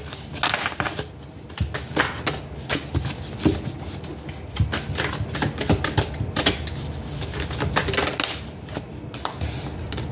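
A deck of tarot cards being shuffled by hand, an uneven run of sharp card clicks and flaps.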